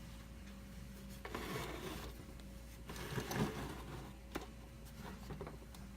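Rubbing and handling sounds in two short stretches, then a sharp click, over a faint steady hum.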